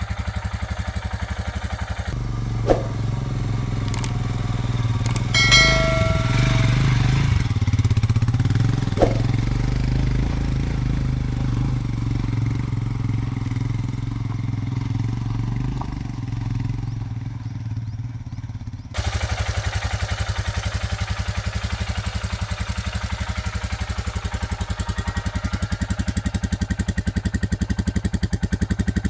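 2021 Royal Enfield Himalayan's 411 cc single-cylinder engine running at idle, a steady low pulse from the engine and exhaust, still in its running-in period. The note turns heavier about two seconds in, with a brief high-pitched tone about five seconds in, then changes suddenly back to a crisper, evenly pulsing idle a few seconds from the end.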